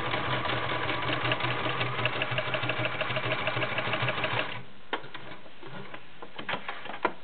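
White Model 999 sewing machine running and stitching through three layers of raw leather: a steady motor hum with a rapid, even ticking of the needle. It stops about four and a half seconds in, followed by a few sharp clicks.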